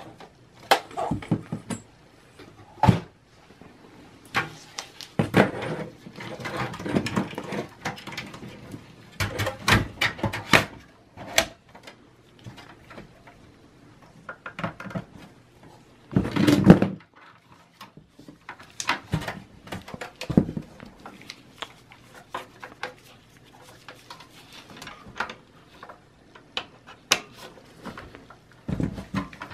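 Scattered clicks, knocks and scrapes of metal parts being handled as a replacement Dell 200 W power supply is fitted into a Dell Optiplex small-form-factor desktop's steel chassis and its cables are pressed into place. One knock a little past halfway is louder than the rest.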